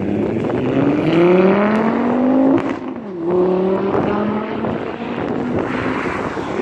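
2005 Volvo S60R's turbocharged five-cylinder, straight-piped through a cat-delete downpipe and a resonator-less catback, accelerating hard: the exhaust note rises in pitch, drops at an upshift of the six-speed manual about two and a half seconds in, then rises again and carries on more faintly as the car pulls away.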